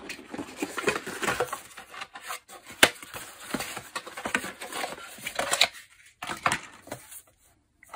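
Cardboard packaging and plastic wrap being handled while unboxing: irregular rustling, scraping and clicking as a plastic-wrapped device is lifted out of its box, with one sharp click about three seconds in. It thins out near the end.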